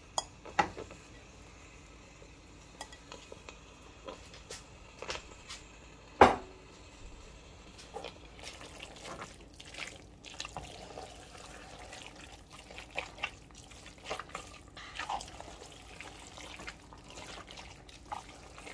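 Scattered light knocks and clinks of a utensil against a pan of pasta in creamy cheese sauce, with wet sounds from the sauce; one sharp knock stands out about six seconds in.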